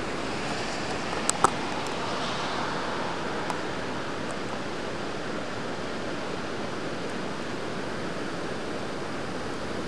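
Steady roar of rushing floodwater. Two sharp clicks come close together about a second and a half in.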